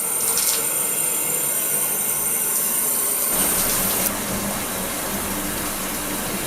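Bathtub tap running, water pouring into the tub as it fills. The hiss is steady; a few seconds in its high end softens and a low hum comes in.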